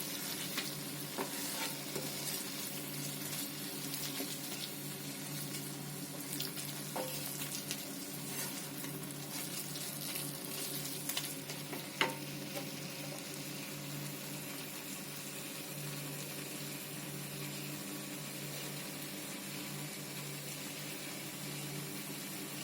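Tomato and onion mixture sizzling steadily in oil on a tava, over a steady low hum. A spatula scrapes and taps the pan now and then through the first half, with one sharp knock about halfway through.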